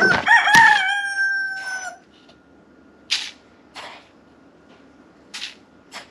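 A rooster crows once, a call held for about two seconds, over two sharp plastic clicks as the lid comes off a coffee canister. Then several short rustling scrapes as a plastic scoop digs into ground coffee and tips it into a paper filter.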